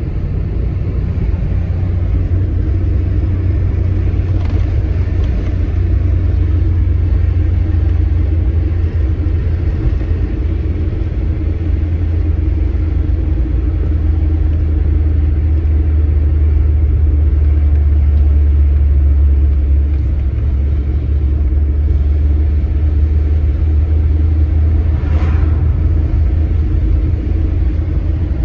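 1981 Toyota Carina heard from inside the cabin while driving: the engine and road noise make a steady low rumble, settling to a slightly lower pitch about halfway through.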